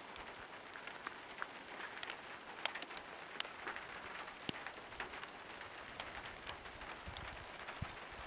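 Gentle mountain rain falling steadily: a soft hiss with scattered sharp ticks of individual raindrops landing close by.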